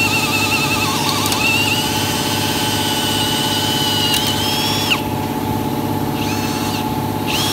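Cordless drill boring through the metal A-pillar post through a drill bushing, a steady high whine that stops suddenly about five seconds in. The drill then runs in two short bursts near the end. A steady low hum lies underneath throughout.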